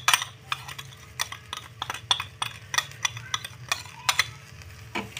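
A metal spoon clinking and scraping against a glass bowl in quick, irregular taps as powdered seasonings are scraped out of it into a wok.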